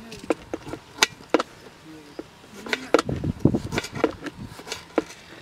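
A knife chopping tomatoes on a plastic cutting board: about ten sharp, unevenly spaced knocks of the blade striking the board, bunched closer together around the middle.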